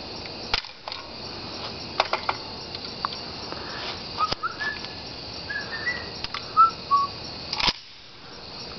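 A bird singing a phrase of short whistled notes that step up and down in pitch, over steady outdoor hiss, with a handful of sharp clicks scattered through.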